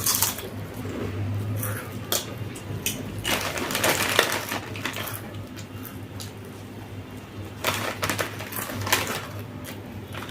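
Eating noises: crunching food with scattered small clicks and clinks of tableware, coming in irregular bursts.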